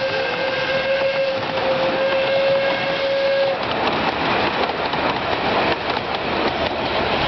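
Miniature steam locomotive's whistle blowing one steady note that cuts off about three and a half seconds in. The clatter of the passenger carriages' wheels on the track runs on as they pass.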